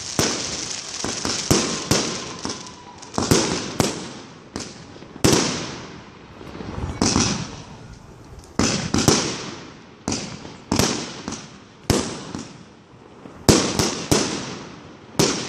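Fireworks firing in a quick series: sharp bangs roughly once a second, some in close pairs, each trailing off in a crackling hiss as the shots rise and burst into stars.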